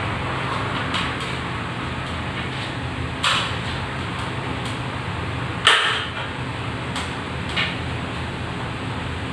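A few knocks and clanks from climbing a metal stepladder and handling a ceiling fluorescent light fixture, the loudest a little over halfway through, over a steady low hum.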